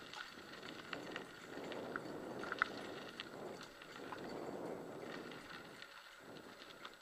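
Bicycle riding over a dirt forest trail: a rolling tyre rumble that swells and fades, with scattered sharp clicks and rattles from the bike, the loudest a single snap about two and a half seconds in.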